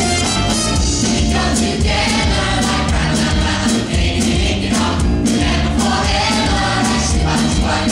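Musical-theatre cast singing together in chorus over band accompaniment.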